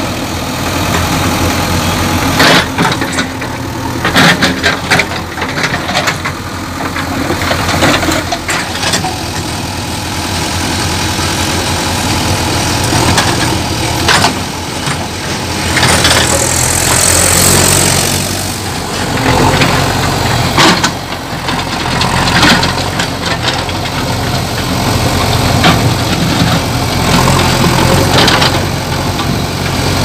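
JCB 3DX backhoe loader's diesel engine running steadily close by, with sharp clanks and knocks now and then from the working backhoe arm and a brief hiss about halfway through.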